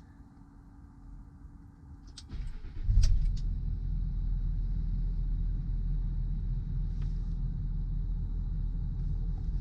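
Land Rover Discovery 3 (LR3) engine cranking and catching about two and a half seconds in, then settling into a steady idle. This is the first start after a new auxiliary-belt pulley tensioner was fitted.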